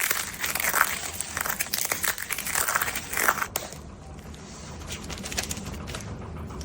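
Crinkling and crackling, as of plastic or paper being handled, with many small sharp clicks. It goes on for about three and a half seconds, then gives way to a quieter, even noise.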